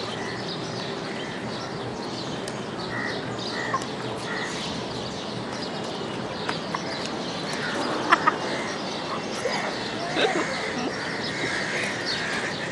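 Steady outdoor background hiss with faint, scattered short bird chirps.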